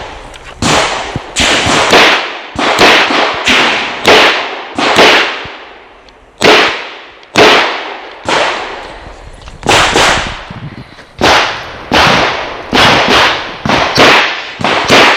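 .40-calibre Chiappa Rhino revolver firing a fast string of shots, about two a second, each with a short ringing echo. There is a pause of about a second and a half midway before the shooting picks up again.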